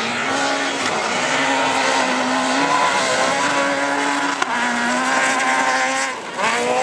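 Rally car engine at high revs on a loose dirt track, its pitch dipping and climbing again several times as the driver shifts and lifts, over the hiss of tyres sliding and spraying dirt.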